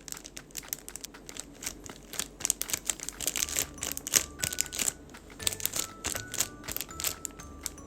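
Crinkling, rustling and light tapping of paper and plastic sticker materials being handled, a quick run of small crackles and clicks. From about three seconds in, soft chiming background music comes in under it.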